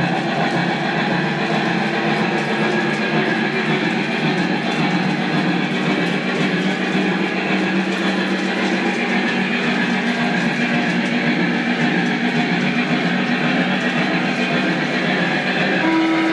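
Lionel Legacy three-rail model of a Norfolk & Western Y6b 2-8-8-2 steam locomotive running on track, a steady rolling, mechanical sound. Near the end a few held tones start.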